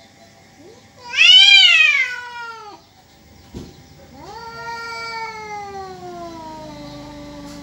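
Domestic cats caterwauling in a fight standoff: one loud yowl that rises and then falls, then after a short click a second, longer yowl that slides slowly down in pitch. These are threat yowls between rival cats squaring off.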